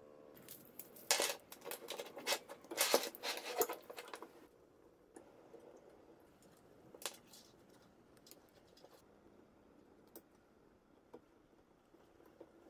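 Light clinks and rattles of a hex key and aluminum brackets being handled while assembling a CNC router, thick for the first few seconds, then a few single clicks.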